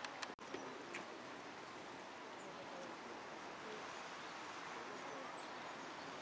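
Steady outdoor hiss with faint, short, high chirps in small groups, from birds or insects. A few clicks and a momentary dropout in the sound come in the first second.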